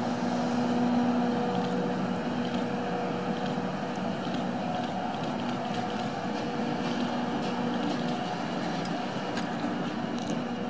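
EF64 1000-series DC electric locomotive running light as it pulls away: a steady hum with scattered clicks of the wheels over the rails, slowly fading as it moves off.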